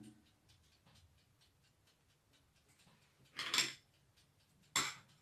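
Mostly quiet room tone, broken twice by a short scrape of a metal spoon in a small glass bowl of pastry cream: once about three and a half seconds in, and again near the end.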